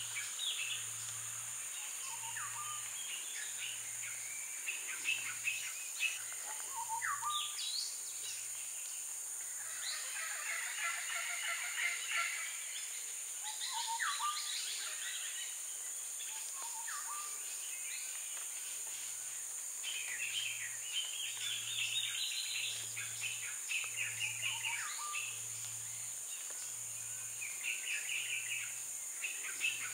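Several tropical forest birds calling at once: chirps, quick trills and short rising whistles. Under them run a steady high hiss and a low hum that pulses about twice a second.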